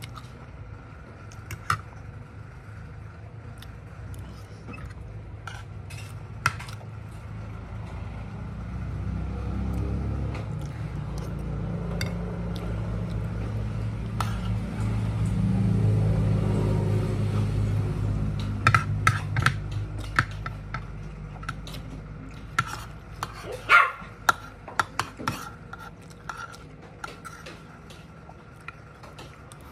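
Metal spoon and fork clinking and scraping on a plate while eating rice, with a cluster of sharper clicks near the end. A low engine rumble swells over the middle and fades away, a vehicle passing.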